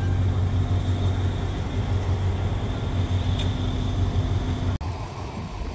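Diesel locomotive engine running with a steady low drone. The sound drops off abruptly near the end.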